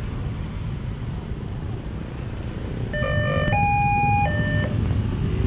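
Motorcycle and car engines running in a steady low rumble, growing louder about three seconds in. Over it a vehicle's musical horn sounds once, briefly: one note, a higher note, then the first note again.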